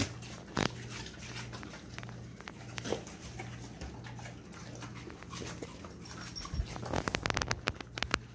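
Dogs whining while waiting for a food treat, with a rapid run of sharp clicks near the end.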